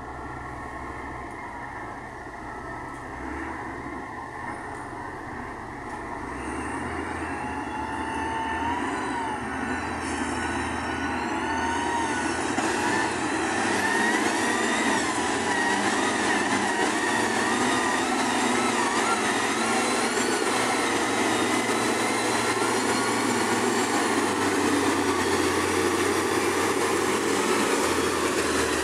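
Motor grader working a crushed-rock road, its diesel engine running and the machine growing louder as it comes close over the first half, with wavering high squeals over the rough noise.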